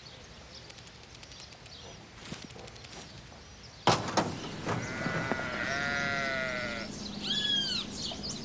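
A sudden knock about four seconds in, followed by a long drawn-out animal call of about two seconds that falls slightly in pitch, then a couple of short arched bird chirps near the end.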